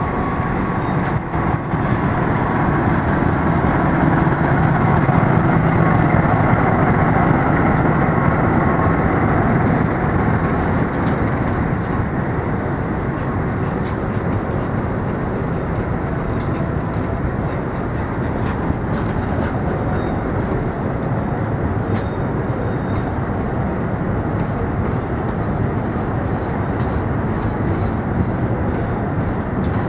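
Tegal Bahari passenger train pulling into the station: its diesel locomotive goes by loudest in the first ten seconds, then the coaches keep rolling past with a steady rumble and scattered clicks from the wheels on the rails.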